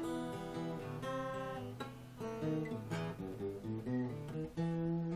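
Acoustic guitar playing the closing bars of a song without singing: strummed and picked chords that ring and change about once a second, with a last chord struck near the end.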